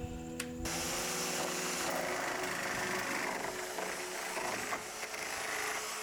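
A power tool running steadily on wood for several seconds, starting about half a second in, over quiet background music.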